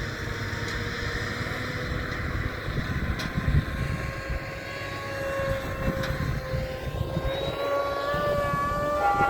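Ford Bronco driving in four-wheel drive, making a whining noise over the low rumble of the drive. The whine holds a steady pitch, then rises and gets stronger near the end.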